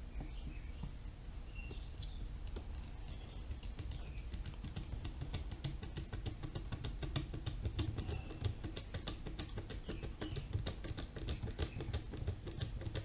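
A hand screwdriver driving a small battery-retaining screw into a Dyson V6 vacuum's plastic housing. It makes a run of small rapid clicks that grows denser about five seconds in.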